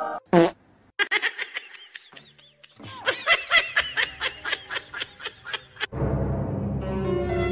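High, quick giggling laughter, a run of short bursts from about one to six seconds in, after a short sliding cry near the start; music takes over about six seconds in.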